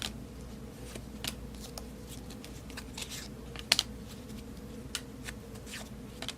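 Baseball trading cards being flipped through by hand: scattered soft flicks and slides of card stock, with a sharper snap just under four seconds in.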